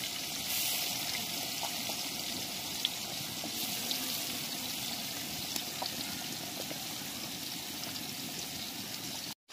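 Fish pieces frying in a wok of hot oil: a steady sizzle with scattered small pops, cutting off suddenly near the end.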